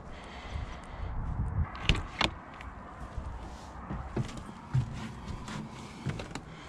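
Footsteps and the handling of a camper's side entry door as it is unlatched and opened: two sharp clicks about two seconds in, then scattered light knocks and steps at the doorway.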